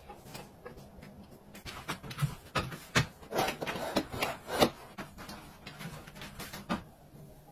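Metal folding step ladder being handled and climbed: a run of knocks, clacks and scraping rubs, thickest from about two to five seconds in, with a few lighter taps near the end.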